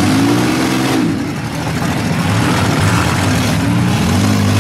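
Several demolition-derby minivans' engines revving together, their pitch rising and falling, as the vans pull away across the track.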